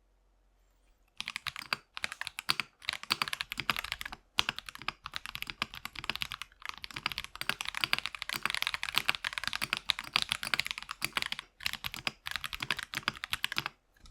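Typing on a Keychron V1 mechanical keyboard with Akko CS Lavender Purple switches, GMK Tako clone keycaps, and tape and PE foam mods: rapid key clacks in runs with brief pauses, starting about a second in.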